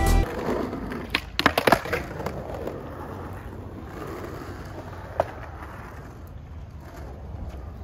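Skateboard wheels rolling on concrete, with a quick cluster of sharp board clacks about a second in: the tail pop, flick and landing of a flip trick over a hip ramp. The rolling fades as the board moves away, with one more click about five seconds in.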